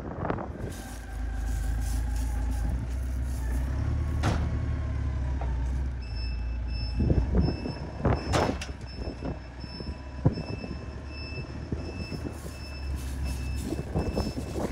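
Ingersoll Rand rough-terrain forklift with its engine running in a low rumble. About six seconds in, its reverse alarm starts beeping at a steady pace, and a few loud clanks come soon after.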